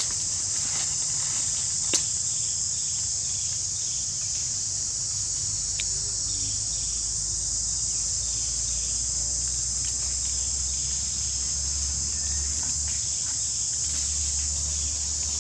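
Steady, high-pitched drone of insects, with a single sharp click about two seconds in.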